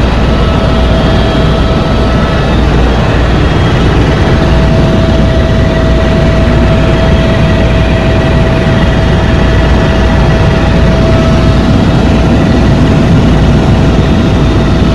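Helicopter in flight heard from inside the cabin: a loud, steady drone of engine and rotor with a constant whine riding on top.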